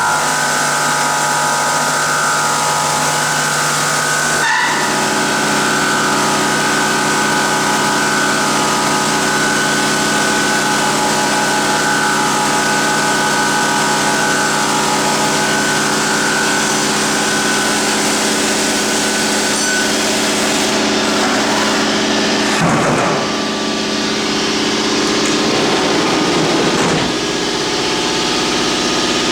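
Bridgeport vertical machining center running a part: several steady machine tones over a loud, even hiss. The tones change pitch about four and a half seconds in, and there are brief sweeping changes in the sound about 23 and 27 seconds in.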